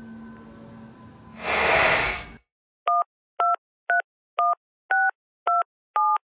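Touch-tone telephone keypad dialing: a run of seven short dual-tone beeps, about two a second, each a different key. Before them, about a second and a half in, comes a brief loud rush of noise that cuts off to silence.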